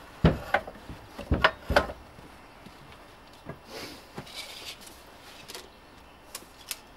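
Steel frame of a Lucas Swinglift mini crane knocking and clanking as its boom is moved down to a lower position: about four heavy knocks in the first two seconds. These are followed by softer scraping and rustling, and two light clicks near the end.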